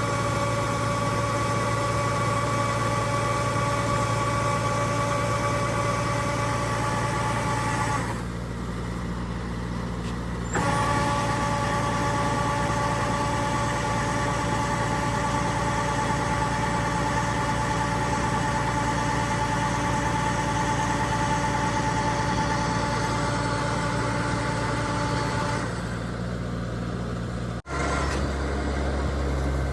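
Kubota DC-70G rice combine harvester running steadily: a diesel engine hum topped by a high whine from the machinery. The whine drops away for a couple of seconds about eight seconds in and again near the end, where the sound cuts out for an instant and comes back as a lower, plainer hum.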